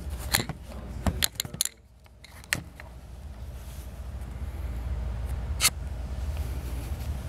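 Camera handling noise: a quick run of clicks and knocks in the first few seconds as the camera is moved and settled, then a steady low hum with one more click near the end.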